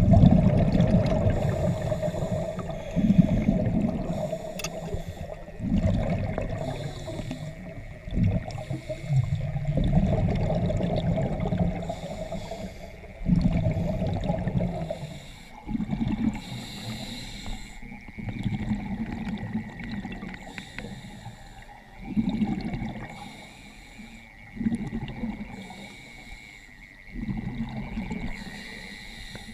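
Scuba diver breathing underwater through a regulator: a burst of exhaled bubbles about every two to three seconds, each fading away before the next breath.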